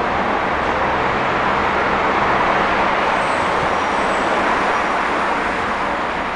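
Steady traffic noise, with a faint low engine hum in the first two seconds.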